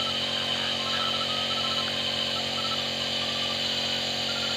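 Small compressor nebulizer running with a steady buzzing hum, misting medicine during a treatment for a cough.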